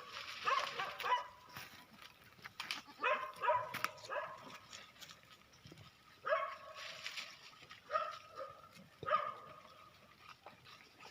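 Goat kid bleating in short, high calls, repeated in clusters of a few every couple of seconds.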